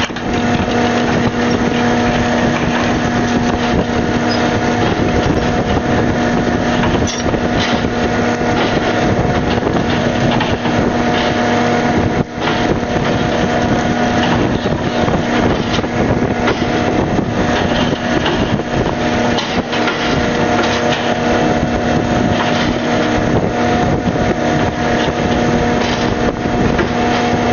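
Fishing boat's engine and deck machinery running steadily, a constant hum.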